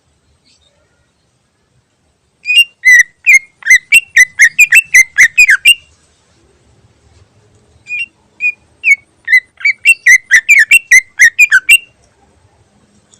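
Cucak ijo (green leafbird) singing: two runs of rapid, loud whistled notes, about four a second. The second run opens with a few spaced notes before it speeds up.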